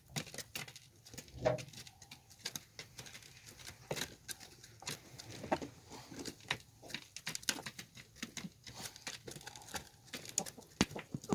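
Irregular light rustling and scattered clicks throughout, with no steady sound.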